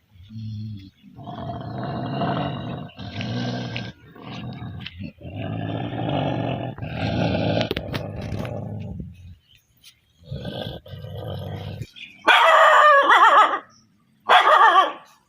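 A dog growling in a run of long, low stretches, then two louder, high, wavering yelps near the end.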